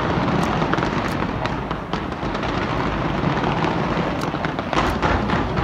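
A large fireworks display going off: a dense, continuous barrage of bangs and crackling, with a few sharper cracks near the end.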